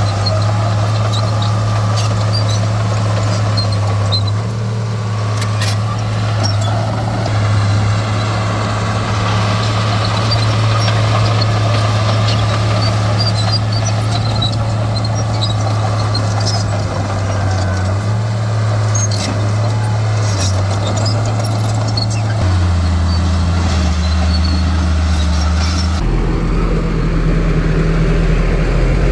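Heavy diesel engines of earthmoving machinery running steadily, with the engine note dropping lower about two-thirds of the way through and again near the end, and scattered faint clanks and clicks.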